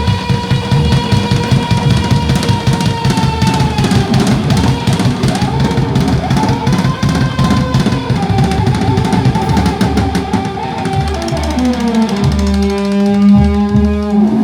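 Live band playing a rock song: fast, dense drumming under sustained electric guitar notes. Near the end the music slides down into one final held chord that cuts off.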